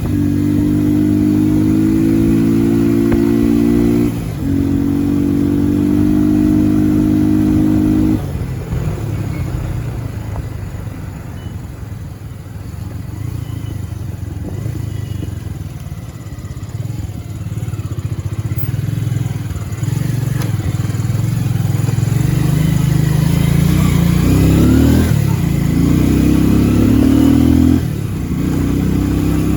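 Motorcycle engine running while riding. The engine note is steady at first, drops away about eight seconds in, then rises again with climbing revs over the last several seconds.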